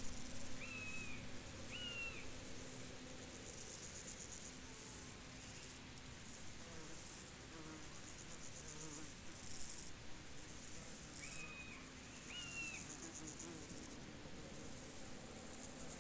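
Field insects, crickets or similar, chirping in high-pitched pulsed trills that come in repeated runs. A bird gives two short whistled calls about a second in, and the same pair again around eleven to thirteen seconds.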